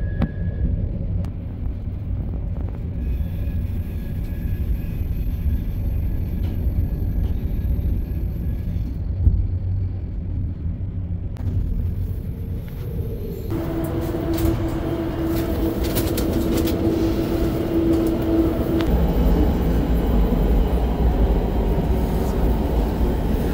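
Passenger train running on the rails, heard from inside the carriage as a steady low rumble. About 13 seconds in the sound turns louder and brighter, with a steady whine for about five seconds, then a heavier low rumble.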